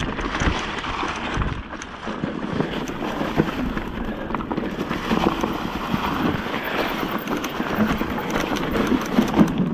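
Mountain bike riding down a dry dirt trail strewn with leaves and stones: tyres crunching and the bike rattling over the ground, with wind buffeting the microphone, heaviest in the first second or so.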